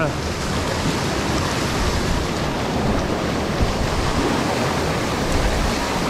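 Rushing white-water river rapids: a loud, steady rush of churning water, with wind buffeting the microphone.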